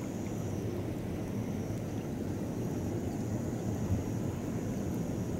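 Steady low outdoor rumble, largely wind on the microphone, with a faint steady high-pitched hiss above it.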